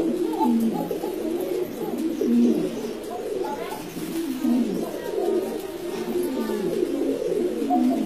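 Sobuj Gola pigeons cooing: several overlapping, continuous rolling coos.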